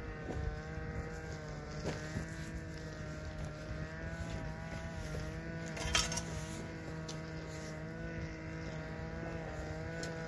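A steady engine drone whose pitch wavers slightly throughout, with a single sharp knock about six seconds in.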